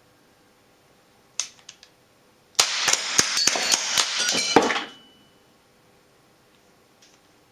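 Tanio Koba GM-7 blowback model gun firing cap cartridges. A single sharp click comes about a second and a half in, then a rapid string of about eight shots over two seconds.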